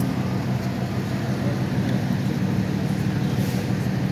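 A vehicle engine idling, a steady low hum with street traffic noise around it.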